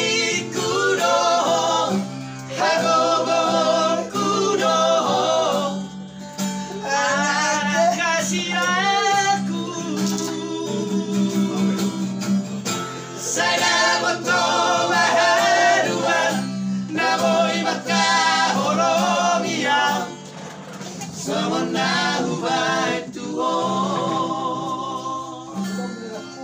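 Men singing together to a strummed acoustic guitar, the sung phrases broken by short pauses while the guitar keeps playing.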